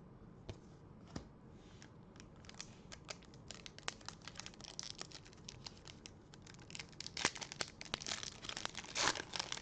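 Trading card pack wrapper crinkling and tearing as a pack is opened by hand: many small crackles, louder near the end.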